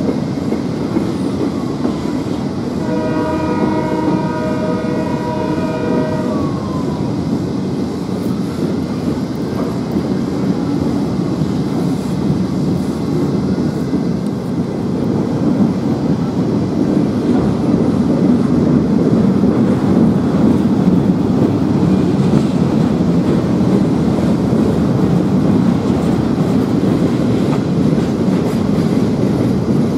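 Freight train of empty flatcars rolling past: a steady rumble with wheel clatter that grows louder in the second half. About three seconds in, the train's lead locomotive, a GE AC4400CW, sounds its multi-note horn in one blast of about three seconds, the pitch sagging as it cuts off.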